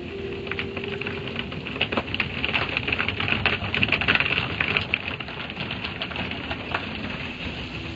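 Automatic car wash water spray pelting the car's windshield and body, heard from inside the car: a dense, rain-like patter of spatters that builds to its heaviest in the middle and eases off toward the end.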